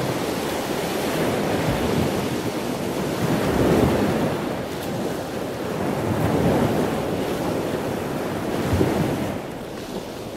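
Choppy sea waves washing and surging, swelling and ebbing every two to three seconds, with wind buffeting the microphone.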